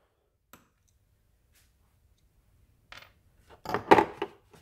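Screwdrivers clicking and knocking against a hard plastic tool case as they are handled in their holders: a single faint tick early, then a short cluster of clicks about three to four seconds in.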